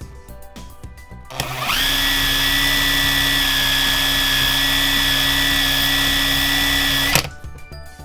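Makita cordless drill spinning up about a second in, then running at a steady high whine while sandpaper is pressed against the clutch plate spinning in its chuck. It cuts off suddenly near the end.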